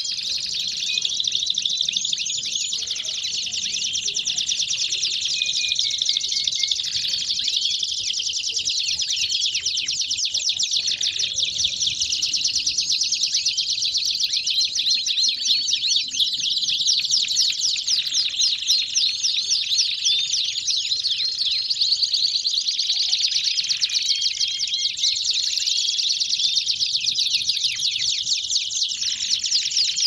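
Several domestic canaries singing at once in a dense, unbroken chorus of fast high trills and rolls.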